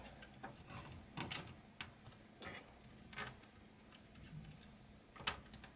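Faint, scattered clicks and taps of hands handling a laptop's plastic casing as a cable is pushed through it, with the sharpest click near the end.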